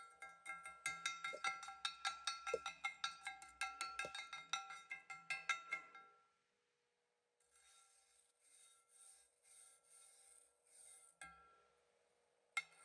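Steel wire brush scrubbing across stick-weld padding beads on a thick steel plate, cleaning off slag and spatter, in fast strokes about four a second. After a short pause come lighter strokes about two a second, and one sharp click near the end.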